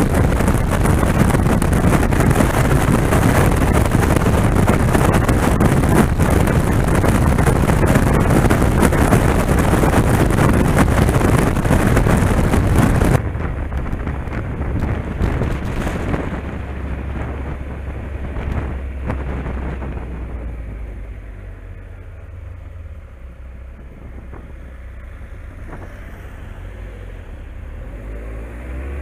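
Heavy wind rushing over the microphone of a motorcycle ridden at highway speed, cutting off suddenly about 13 seconds in. After that comes the quieter low hum of the motorcycle engine at low speed in town, which drops further about two-thirds of the way through and picks up slightly near the end.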